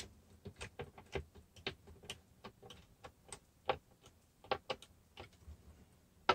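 Hand screwdriver tightening the mounting screws of a satin-nickel cabinet pull through a cabinet door: a run of faint, irregular clicks and ticks, a few a second, with a sharper click near the end.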